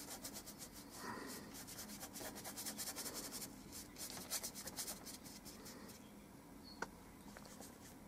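Paintbrush scrubbing oil paint onto paper in quick back-and-forth strokes, a rapid dry scratching that eases off after about five seconds. A single small tick near the end.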